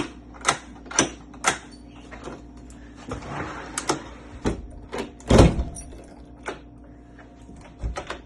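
Sharp metal clicks and knocks of a mortise lock being worked on in a door, several about half a second apart near the start, with the loudest knock about five seconds in.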